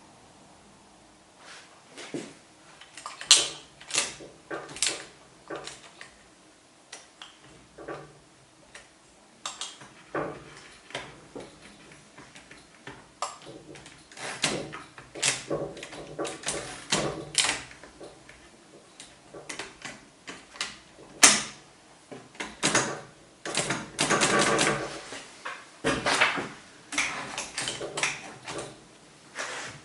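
Old typewriter clacking: sharp single strokes at an irregular pace, with a denser run of clattering about two thirds of the way through.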